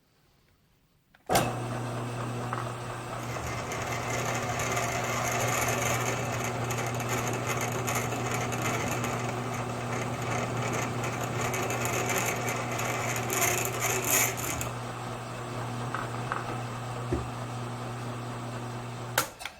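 Grizzly G1007 mill-drill starting suddenly about a second in and running steadily with a motor hum while a Q-size drill bit cuts through the cast iron body of an International engine's fuel mixer, boring the tap hole for a 1/8 pipe thread; the machine is switched off just before the end.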